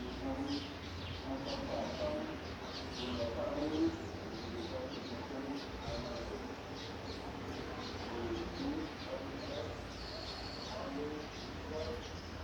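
Light rain falling steadily, with birds chirping and calling throughout over a low steady rumble.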